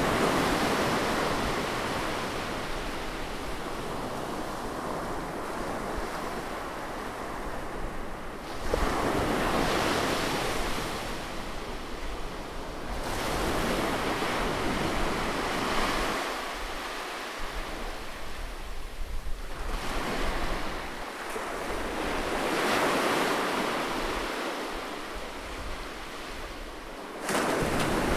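Sea waves recorded close to the shore, breaking and washing in and out, with a fresh surge rolling in about every six to seven seconds.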